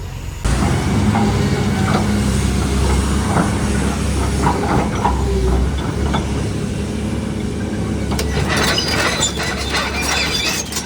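Heavy diesel machinery running with a low rumble and metallic clanking and rattling. The sound starts abruptly about half a second in, and the rattling is busiest near the end.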